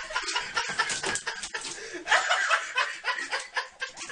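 Off-camera laughter: a person snickering and chuckling in short, irregular bursts.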